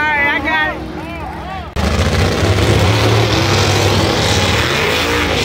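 Brief voices, then about two seconds in a drag racing car's engine starts up loud and abruptly, with a deep rumble and a harsh, crackling exhaust, at the starting line as cars stage and do burnouts.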